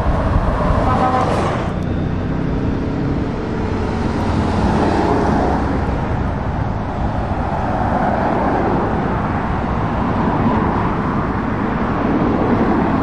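Steady road traffic with heavy lorries and cars driving past, and a horn tooting briefly about a second in.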